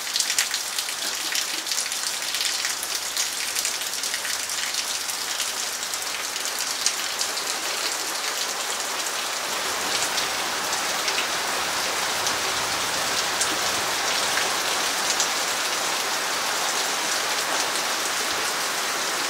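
Heavy rain falling steadily, with many individual drops ticking close by; it grows a little louder about halfway through.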